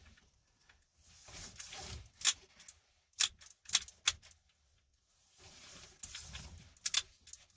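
Seatbelt webbing pulled out of a shoulder-belt retractor, sliding with a rustle, with several sharp clicks from the retractor mechanism. The freshly cleaned and re-tensioned retractor now lets the belt pay out at a reasonable speed instead of locking up.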